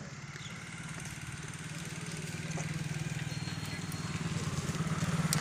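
An engine running steadily with a fast, even low pulse, growing gradually louder.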